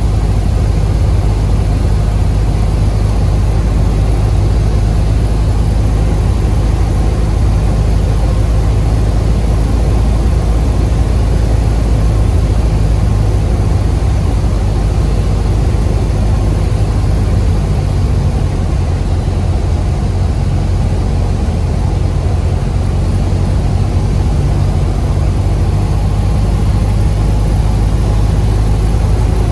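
Cessna 182's piston engine and propeller droning steadily, heard from inside the cabin in flight. The low drone eases slightly about eighteen seconds in.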